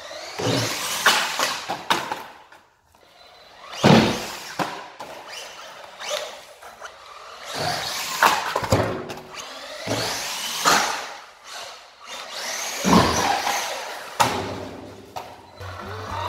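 Electric RC monster truck's motor whining in repeated bursts, rising and falling in pitch as it speeds up and slows, with its tyres on a concrete floor and hard thumps as it lands off a ramp, the loudest about four seconds in.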